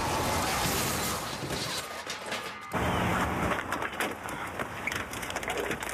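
A car crash: a loud smash and a rushing noise, then, after a sudden cut about halfway through, scattered knocks and rattles.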